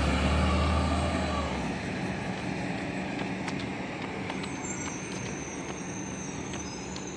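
City bus driving away, its low engine rumble fading out over the first second or two, leaving a steady hum of distant traffic.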